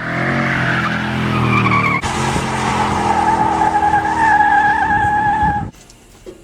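Tires squealing under a revving engine, as in a burnout. For the first two seconds the engine's note sits beneath the squeal. After a break about two seconds in, a steady high tire squeal carries on, then cuts off abruptly shortly before the end.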